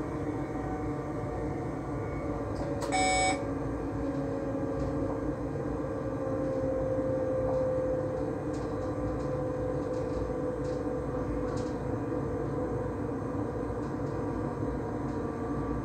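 Electric train running along the track, heard from inside the front cab: a steady rumble with a motor whine that drifts slowly in pitch. About three seconds in, a short electronic beep sounds once from the cab.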